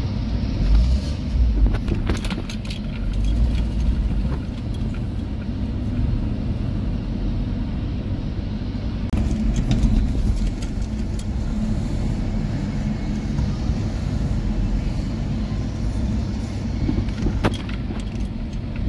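Car cabin noise while driving slowly: a steady low rumble of engine and tyres, with a few clicks.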